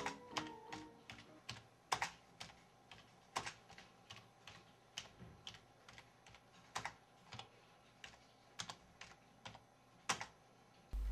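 Computer keyboard being typed on slowly, single keystrokes clicking at an uneven pace, two or three a second. A few musical notes die away in the first second.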